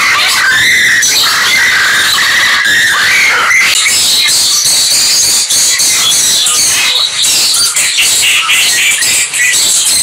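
A dense, continuous din of many birds calling at once: chattering, chirps and squawks. Wavering calls stand out in the first few seconds, and higher-pitched chatter takes over from then on.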